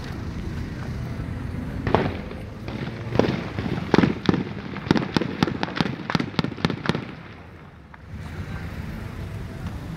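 Gunfire: a shot about two seconds in, a few more spaced about a second apart, then a rapid string of about ten shots in under three seconds. A steady low vehicle rumble runs underneath.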